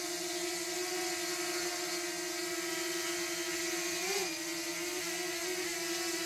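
Small quadcopter drone hovering close by, its propellers whining steadily, with a brief wobble in pitch about four seconds in.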